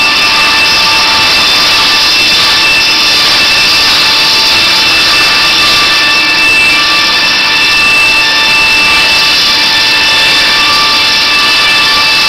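Loud steady machinery noise, a constant hiss with several high steady whining tones running through it and no change or break.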